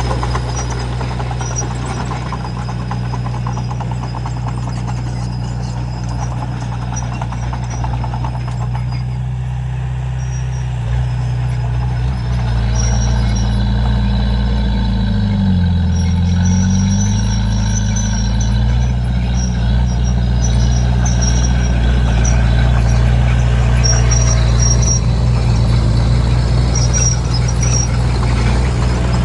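Komatsu D31P crawler bulldozer's diesel engine running, its pitch dipping and then recovering about midway, with intermittent high squeals.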